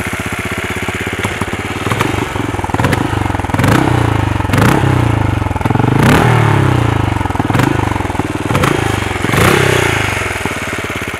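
Benelli Imperiale 400's single-cylinder engine running and being revved about seven times, the revs rising and dropping back each time. The engine is quite vocal.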